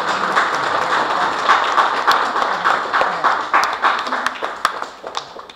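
Audience applauding: a dense patter of many hands clapping that thins out and dies away near the end.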